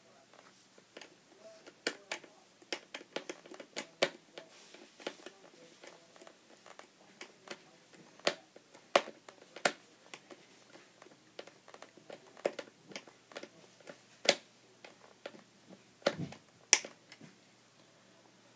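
Sharp, irregular clicks of a screwdriver turning a facemask screw into the side of a Riddell Revolution Speed football helmet, coming in small runs of a few a second, with pauses between.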